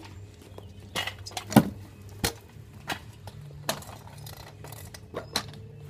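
Stunt scooter clattering against the kerb and road: a string of sharp metallic clicks and knocks, roughly one every half second to second.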